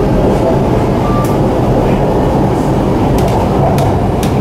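Shanghai Metro Line 9 train running, a steady rumble of wheels and traction motors heard from inside the carriage, with a few light clicks in the second half.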